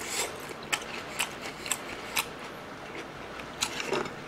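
Close-miked chewing of a crispy battered fritter: sharp crunches of the fried coating about twice a second, pausing briefly in the middle.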